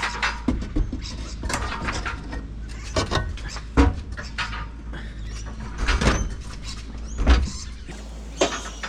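Irregular knocks and clanks as a Toyota 4Y engine hanging on a chain is worked out of the engine bay, with heavier thumps about four, six and seven and a half seconds in.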